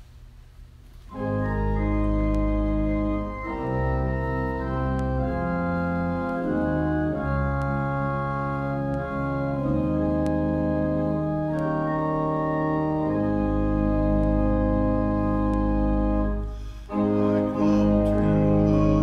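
Church organ playing slow, sustained chords that change every second or so, starting about a second in, with a short break near the end before it resumes.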